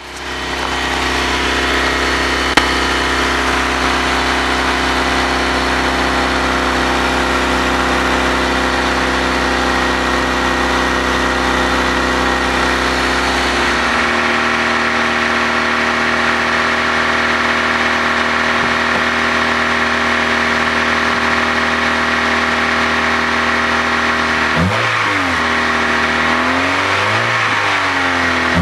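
Honda Civic engine idling with its exhaust leaking through a hole. The idle settles a little lower about halfway through, and the engine is revved twice briefly near the end. One sharp click sounds early on.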